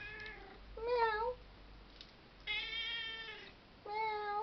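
Domestic cat meowing four times in a row: short calls at the start, about a second in and near the end, with a longer, steadier meow in the middle.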